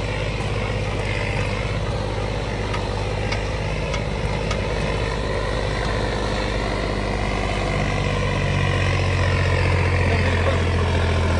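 John Deere tractor's diesel engine running steadily, getting louder about eight seconds in.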